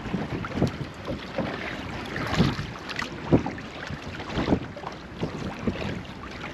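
Wind buffeting the microphone and small waves slapping against a boat's hull, with irregular knocks and splashes.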